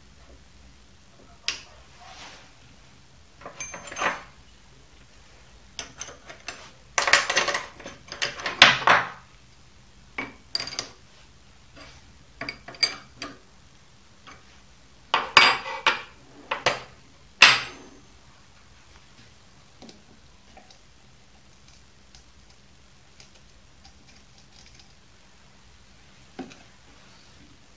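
Metal clinks, clacks and scrapes from a stopped mini lathe's tailstock and drill chuck being handled and set in place. The clatter comes in irregular clusters, loudest about a third of the way in and again past the middle, then dies down to a few faint ticks near the end.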